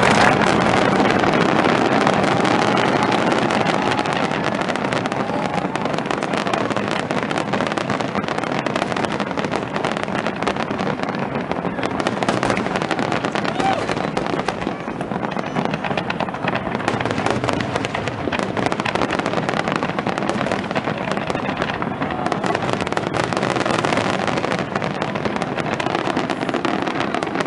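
Aerial fireworks display: a dense, unbroken run of bangs and crackling bursts, with crowd voices mixed in.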